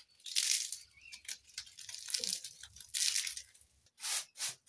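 Dry kindling crunching and rustling as a wood cooking fire on an earthen hearth is fed by hand, in a series of short rustles.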